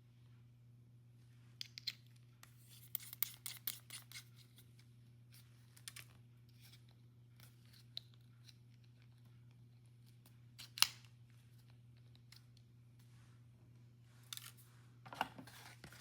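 Faint, scattered clicks and short plastic rustles from unpacking and handling a valve core remover tool and its packaged parts, in a cluster early on, single clicks later with the sharpest about eleven seconds in, and another cluster near the end, over a steady low hum.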